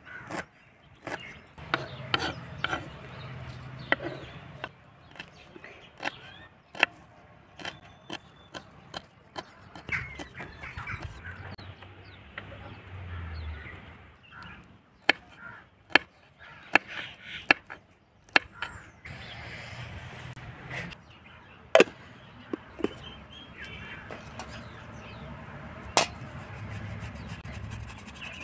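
Kitchen knife chopping fresh coriander and green chillies on a wooden cutting board: the blade knocks on the board, sharp and irregular, some in quick runs.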